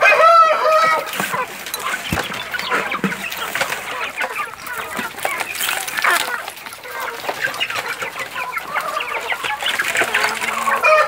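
A flock of caipira chickens clucking continuously while feeding. One louder drawn-out call sounds right at the start.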